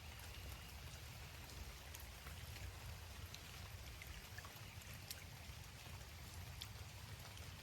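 Faint steady water noise of pond runoff, with scattered small drips and splashes.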